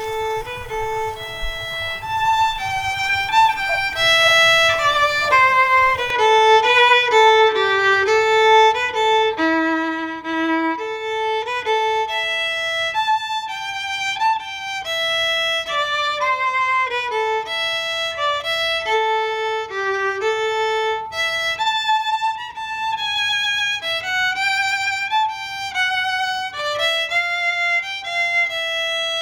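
A violin playing a melody, one note at a time.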